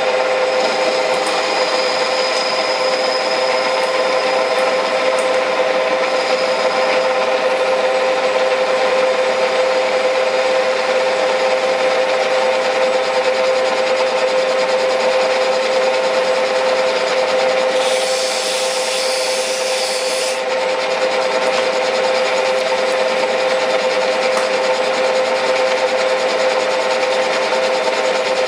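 Metal-turning lathe running steadily with its workpiece spinning, a constant hum from the motor and spindle drive. A short higher hiss joins it about eighteen seconds in, lasting a couple of seconds.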